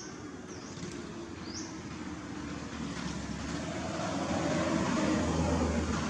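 A motor vehicle's engine drawing closer, a steady low hum under noise that grows louder to a peak about five seconds in.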